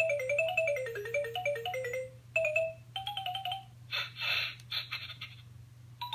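LeapFrog Chat & Count toy phone's speaker playing a quick electronic beeping tune, the notes stepping up and down, then a few held beeps and two short noisy sound effects about four seconds in. Right at the end a button press sets off new beeps.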